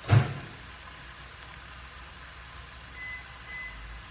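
A sharp knock at the very start, then a steady hiss under two short, high electronic beeps about half a second apart near the end, from a microwave oven.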